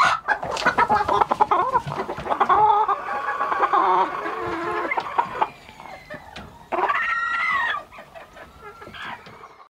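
Chickens clucking and calling, with sharp clicks in the first second and one longer rising-and-falling call about seven seconds in.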